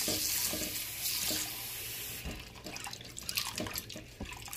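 Kitchen faucet running into a glass bowl of cut potato wedges while hands swish them through the water, rinsing off the starch. The stream stops about two seconds in, leaving irregular splashing and sloshing of the potatoes being stirred.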